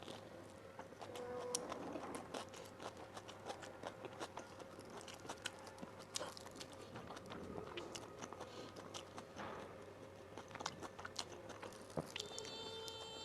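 A person eating, with faint, irregular crunching and chewing clicks.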